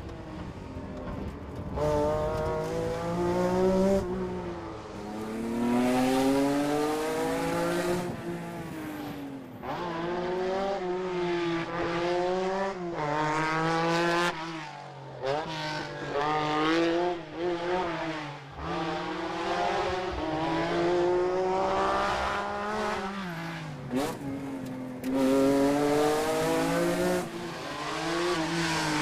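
Lancia Stratos rally car's Ferrari Dino V6 revving hard through the gears, its pitch climbing and then dropping back at each shift, over and over.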